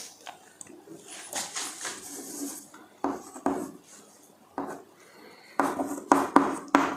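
Chalk writing on a blackboard: short scratchy strokes and irregular sharp taps as letters are written, with a quick run of taps near the end.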